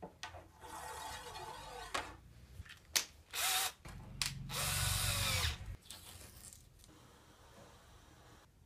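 Cordless drill running in several short spurts, the loudest about a second long near the middle, its motor pitch dipping and then rising, with a few sharp clicks between runs. The drill's chuck grips a wooden dowel.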